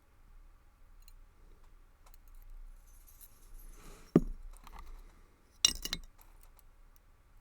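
Small metal parts of a brass padlock being handled during reassembly: faint ticks, a single knock about four seconds in, and a short burst of bright metallic clicks and clinks a little before six seconds.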